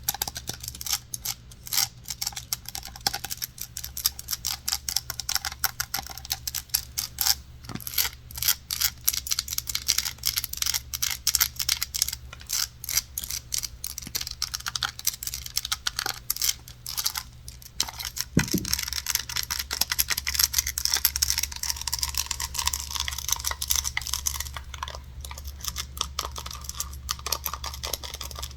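Fast, irregular ASMR tapping on hard objects such as wood, many taps a second, with scratching joining in over the second half.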